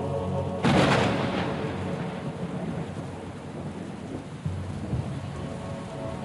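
A loud thunder-like crash about a second in, dying away into a long rumbling hiss, over a low held chord of the show's opening music.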